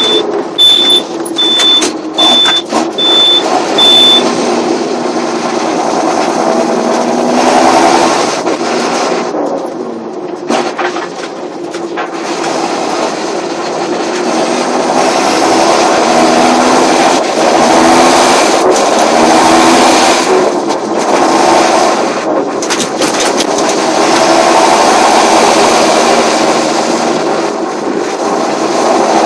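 John Deere 7530 tractor's turbocharged diesel engine running under load, its pitch rising and falling, with the turbocharger whistling. A high beeping, about one and a half beeps a second, sounds over it and stops about four seconds in.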